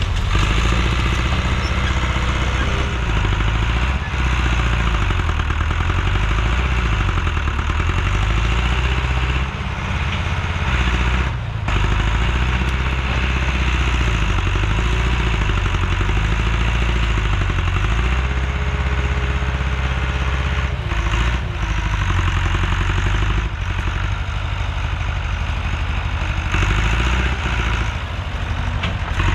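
Heavy equipment engine running steadily under working load, its pitch rising and falling repeatedly as throttle and load change, with a few brief dips in level.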